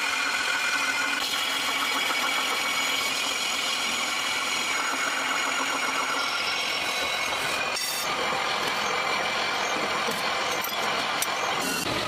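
Metal lathe running while a cutting tool turns the face of a cast brake disc: a steady machine hum and cutting noise with a faint high whine, changing abruptly about a second in and again near the end.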